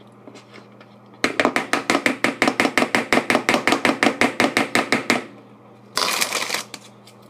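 Plastic wrappers of individually wrapped cheese slices being handled: a fast, even run of rustling strokes, about eight a second, for some four seconds, then a short crinkle of plastic near the end.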